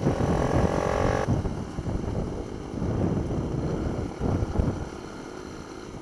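Minibike engine running at high revs with wind rushing over the microphone; the high engine note drops away about a second in, leaving a low engine rumble and wind buffeting.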